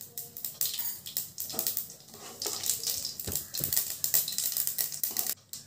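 Mustard seeds crackling and popping in hot oil in a non-stick kadai: a fast, irregular patter of sharp little pops as the seeds splutter, with a couple of duller knocks about three and a half seconds in.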